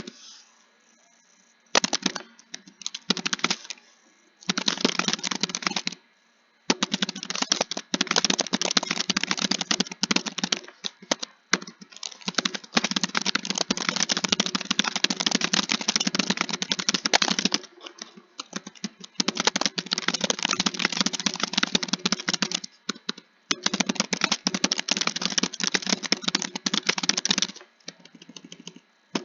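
Computer keyboard being typed on quickly: dense runs of keystrokes lasting a few seconds each, broken by short pauses.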